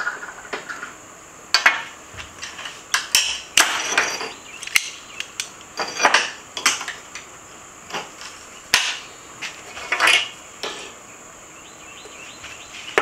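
Scattered sharp metal clinks and knocks as steel armor plates, locking pliers and a tap and tap handle are handled on a steel workbench during hand-threading of holes. A steady high insect buzz runs behind them.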